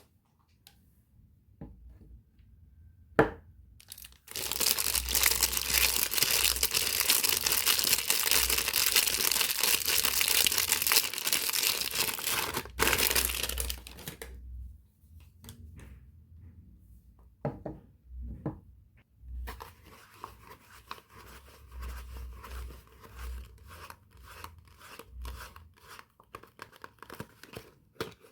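Soap packaging being torn open by hand: a sharp click, then about ten seconds of loud continuous tearing and rustling of the wrapper, followed by a few light knocks and quieter crinkling of the packaging near the end.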